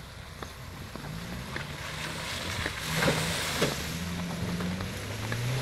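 Off-road vehicle engine revving up and down under load as it is driven through mud, with a swell of rushing noise about halfway through and a few knocks.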